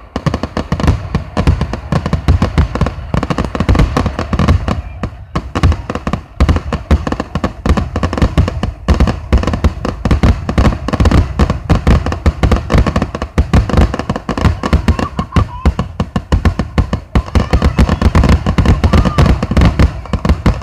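Fireworks going off in a rapid, continuous barrage, many bangs a second with a deep rumble under them.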